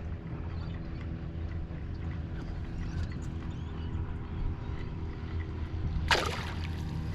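Boat motor running with a steady hum, and a short splash of water about six seconds in.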